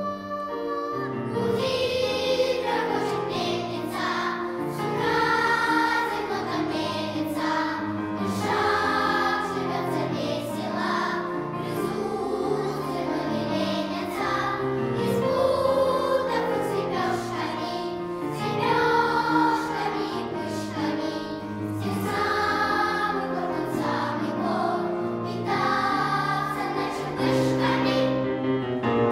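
Children's choir singing a lively song, with a boy's solo voice among them and piano accompaniment.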